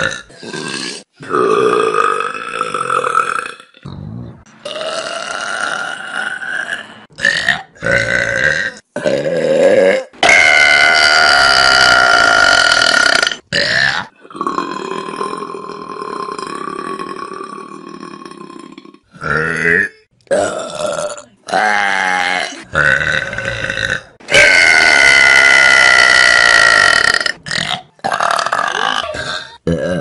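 A rapid series of loud burps from different people, one after another with short breaks between them, several of them long drawn-out belches lasting about three seconds.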